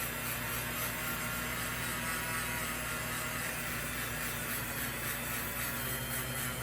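Small motor-driven wire brush running at a constant speed, a steady whir.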